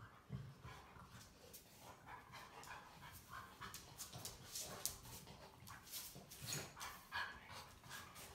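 Two Labradors play-wrestling: faint panting and scuffling, with scattered light clicks of claws on a wooden floor.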